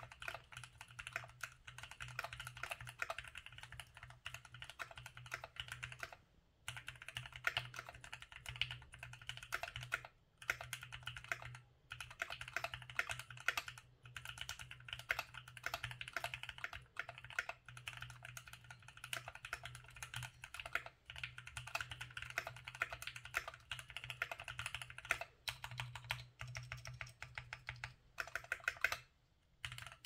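Fast, continuous typing on a Keychron Q3 mechanical keyboard with lubed Gateron G Pro Brown switches, foam and tape modded: a dense stream of keystrokes, broken by a few short pauses about six, ten and twelve seconds in and again near the end.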